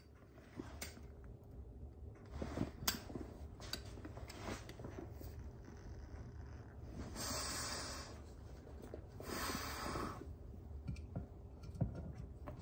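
A cigarette being lit with a lighter and smoked: a few small clicks in the first three seconds, then two long breaths of smoke, about seven and nine seconds in.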